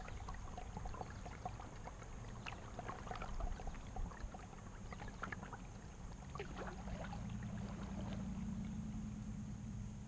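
Water trickling and splashing in small droplets around a kayak's hull as it moves across a lake, over a low rumble.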